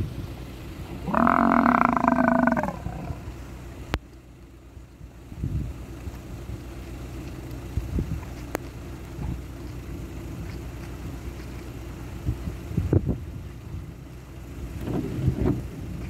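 A loud, drawn-out moaning call from a large animal about a second in, lasting about a second and a half. It sits over a steady low rumble, and scattered soft knocks and rustles follow.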